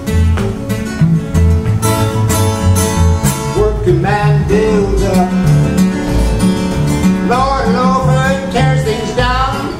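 Two acoustic guitars playing an instrumental break: a steady, driving rhythm part with a walking bass under it, and lead lines whose notes bend in pitch near the middle and again toward the end.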